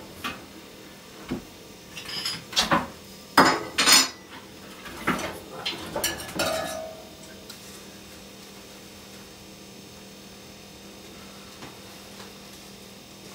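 Stainless steel stovetop coffee pot and its metal lid clinking and knocking against the camp stove as it is handled: a run of sharp metallic clinks, loudest a few seconds in, the last one ringing briefly. After that only a faint steady hum.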